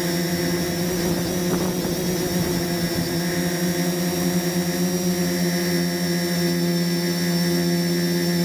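Turnigy SK450 quadcopter's electric motors and propellers running steadily at a hover, a constant multi-pitched whine heard from the camera on the craft itself, rougher for a couple of seconds about a second in.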